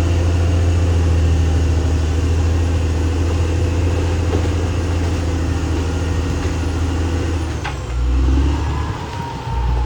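Caterpillar D6R XL crawler bulldozer's diesel engine running steadily. Near the end there is a sharp knock, and then the engine note swells and dips in pulses.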